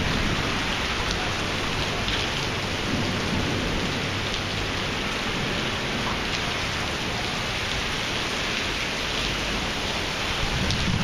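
Heavy thunderstorm rain pouring steadily onto pavement and parked cars: a dense, even hiss with a low rumble underneath.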